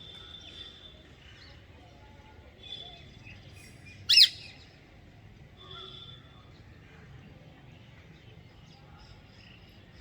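Birds calling: short, high whistled notes repeat every few seconds, and one loud, shrill call sweeps in pitch about four seconds in.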